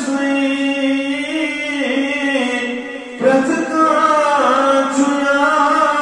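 A man's solo voice chanting in long, held melodic phrases, with a short break about three seconds in.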